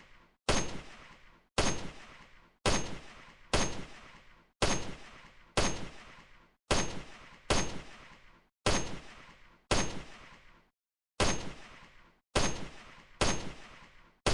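AKM rifle firing single 7.62×39mm shots one at a time, about one a second, each a sharp report fading away over most of a second, about fourteen shots in all with a slightly longer pause about eleven seconds in.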